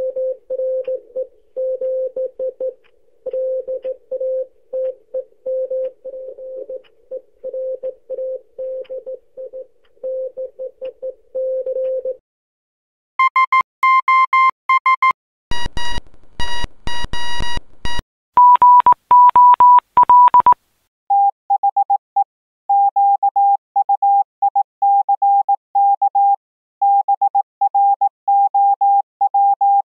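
Morse code sent as beeping tones in short and long pulses, several separate clips in a row: a low-pitched beeping for about twelve seconds, a brief pause, then higher, buzzier beeps mixed with clicks, then a mid-pitched beeping over the last third.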